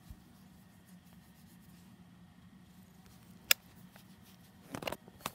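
Close handling noise from a cat headbutting and rubbing against a petting hand and the phone: faint rustling, one sharp tap about three and a half seconds in, then a short burst of rubbing and another tap near the end.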